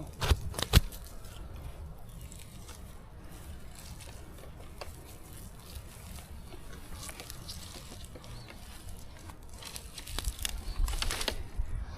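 Brush and branches rustling and crackling, with a couple of sharp snaps within the first second and more crackling near the end.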